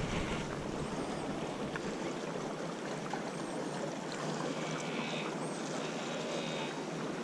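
Small Mediterranean waves washing and lapping against shoreline rocks, an even steady wash of water noise.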